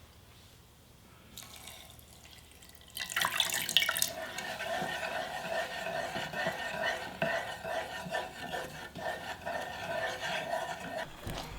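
Water running from a tap into a sink, turned on about three seconds in and shut off near the end.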